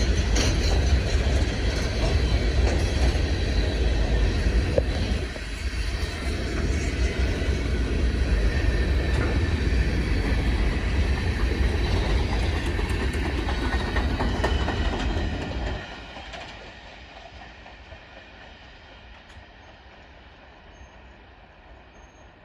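Norfolk Southern freight cars rolling past with a heavy rumble and clacking wheels. About sixteen seconds in the rumble drops off sharply as the end of the train goes by, and the sound fades away.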